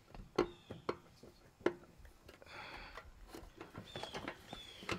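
Scattered light knocks and clicks as the engine's side case is worked loose from the crankcase of a Coleman CT200 mini bike, with a short scraping rush about two and a half seconds in.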